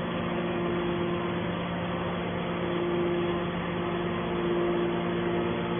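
Metal scrap baler machinery running with a steady hum.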